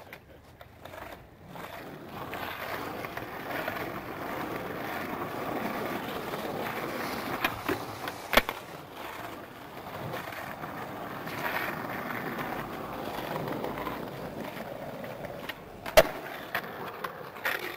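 Skateboard wheels rolling over concrete. A sharp clack of the board striking a concrete ledge comes about eight seconds in, and a louder clack of the board hitting the ground near the end.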